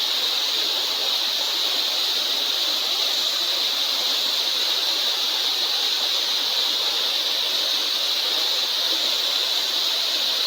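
Waterfall rushing, a steady, unbroken noise of falling water with a high-pitched hiss standing out in it.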